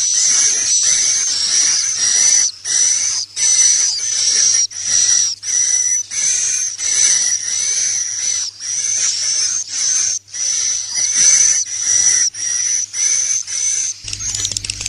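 Recorded swiftlet calls played as a roosting lure for swiftlet houses: high chirping twitters repeating about twice a second with short gaps. Near the end the recording changes, with a low hum under the calls.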